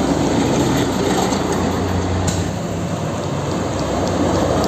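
River water rushing steadily while a toy truck is rinsed in it.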